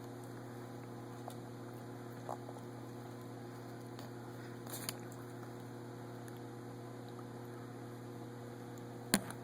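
Steady low electrical hum with a few faint ticks, and one sharper click about nine seconds in.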